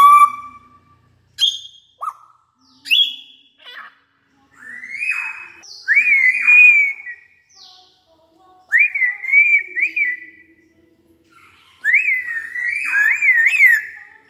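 African grey parrot whistling: a few short clicks and chirps at first, then three longer warbling whistles with quick up-and-down turns in pitch.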